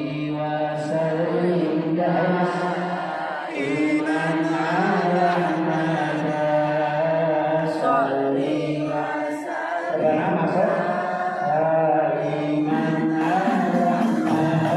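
A man chanting a devotional Islamic song into a microphone over a hall PA, in long held notes that waver in pitch, with short breaks for breath.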